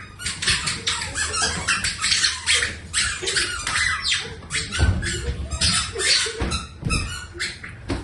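Rapid, repeated duck-like quacking squawks, about four to five a second. A few low thumps come around five and seven seconds in.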